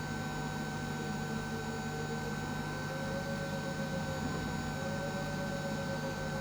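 Steady electrical hum and whine, with several constant tones. A fainter tone drifts up and down in pitch about halfway through.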